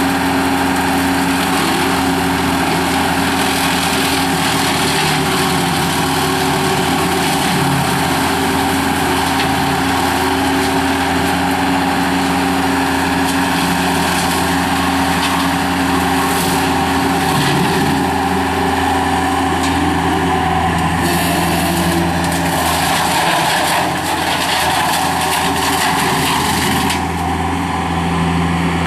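Skid steer loader engine running steadily at working throttle, driving a 60-inch brush cutter attachment while mowing, with a dense high hiss and scattered crackles over the engine's hum. The high hiss eases off about two seconds before the end.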